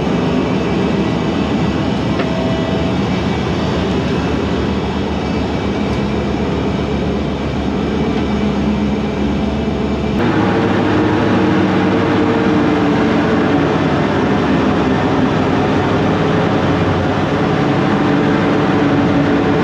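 Toyota 1UZ-FE 4.0-litre V8 driving a jet boat, running steadily at low speed. The note shifts abruptly about halfway through.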